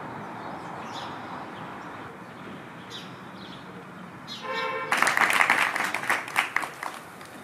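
Quiet outdoor street ambience with a few faint chirps, then a brief pitched tone about four and a half seconds in. Right after it a small crowd breaks into applause, ending the minute of silence.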